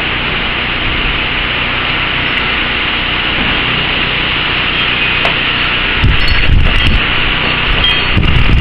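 Storm wind rushing steadily through trees. Strong gusts buffet the microphone with a low rumble about six seconds in and again near the end.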